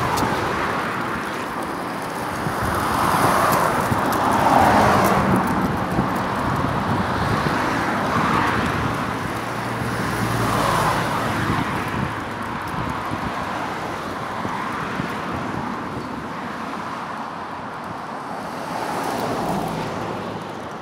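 Road traffic: several vehicles passing one after another in slow swells, with wind noise on the microphone.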